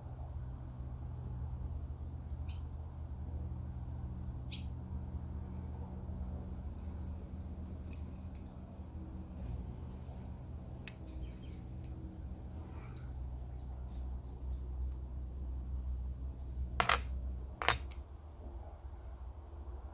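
Small brass petrol-lamp valve parts being handled: scattered light metallic clicks and ticks over a steady low hum. Near the end come two sharper clicks about a second apart, as pliers grip the brass fitting.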